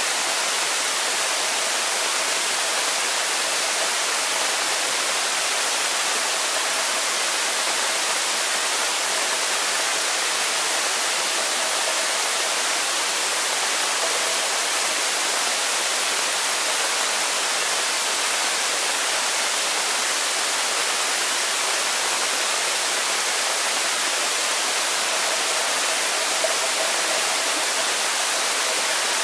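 Steady underwater hiss and rush of a swimming pool picked up by a submerged camera, with a faint steady hum underneath.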